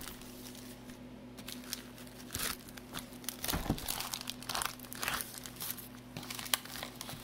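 Plastic shrink wrap crinkling and crackling irregularly as a hand pulls at it to work it open.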